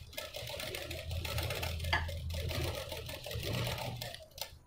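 Sewing machine running steadily as it stitches lace onto a blouse neckline. It stops shortly before the end, followed by a click.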